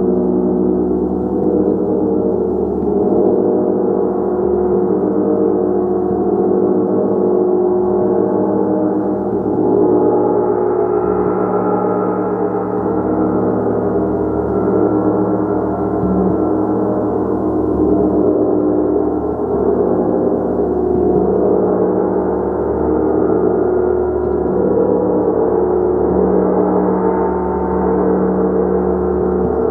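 A gong played continuously, its many overlapping tones building into a steady, dense sustained wash with no pauses.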